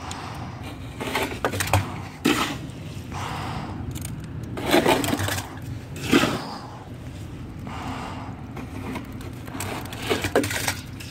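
A shovel scraping and scooping wet concrete out of a wheelbarrow and tipping it into a fence-post hole: several separate scrapes, a second or two apart.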